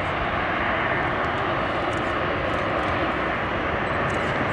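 Twin jet engines of a Boeing 777-300 running steadily as the airliner taxis, an even, unbroken engine noise.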